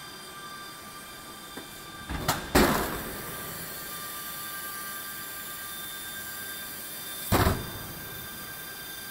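ATR 42-500 main landing gear extending during a gear swing on jacks: a loud double clunk about two seconds in as the gear door opens and the leg drops, and another heavy clunk about seven seconds in as the gear comes down into place. Under it runs a steady mechanical hum with faint high tones.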